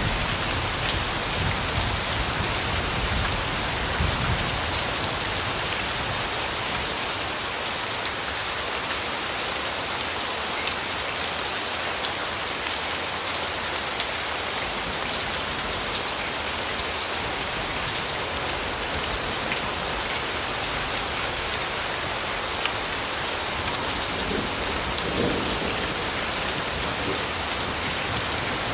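Steady rain falling on a surface, a dense hiss with fine drop patter. A low rumble underneath fades over the first few seconds.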